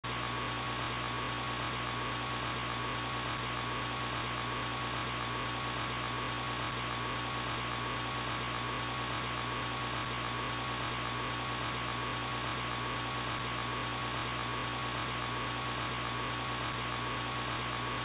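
Steady electrical mains hum with a hiss behind it and a thin, constant high tone, all dull and lacking any treble.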